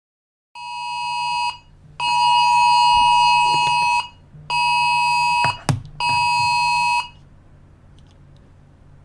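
Wireless Emergency Alert attention tone from a phone: a loud, steady alarm tone sounding in four pulses with short breaks between them, over a low hum, with a sharp click about halfway through.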